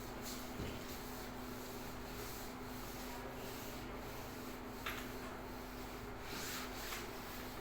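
Hand rubbing or sanding strokes on an old wooden floor, repeating about every half second, with a steady low hum underneath and a sharp tap about five seconds in.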